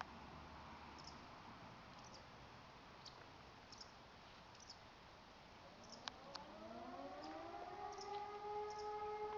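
E57 electromechanical civil-defence siren spinning up about six seconds in: its pitch glides upward and levels off into a steady tone with several overtones. This is the opening of the "Feueralarm" fire-alarm signal. Faint small chirps sound before it, and two sharp clicks come just as it starts.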